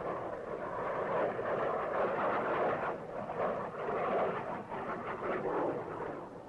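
Jet aircraft engine noise in low-level flight: a steady rushing sound that swells and dips, heard through the hiss of an old film soundtrack.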